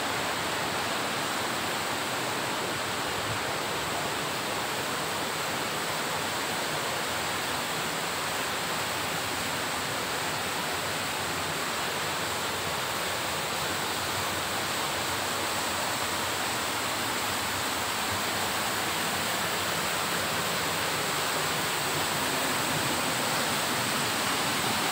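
Waterfall: water falling and splashing into its pool, a steady, unchanging rush of noise.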